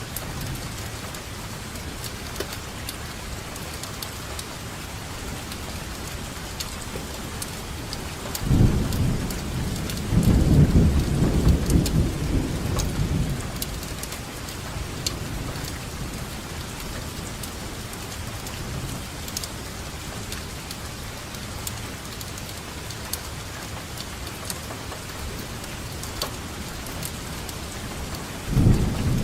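Steady rainfall with scattered distinct drops, and rolling thunder rumbling low and loud for about five seconds starting near the middle, with another roll beginning at the very end.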